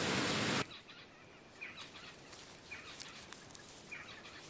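A steady rush of waterfall noise cuts off suddenly under a second in. It gives way to faint outdoor background with a bird calling three times, each a short falling chirp, about a second apart.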